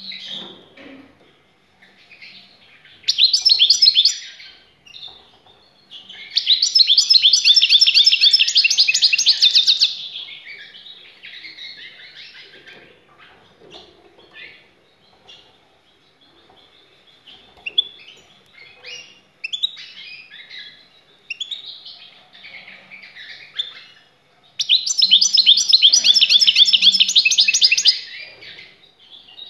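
European goldfinch singing: three bursts of loud, rapid trilling song, the longest about four seconds, with softer twittering and chirps in between.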